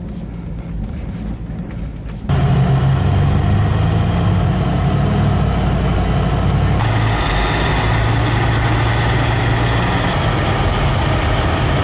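Heavy truck engine running steadily under load, a low drone that suddenly becomes much louder about two seconds in.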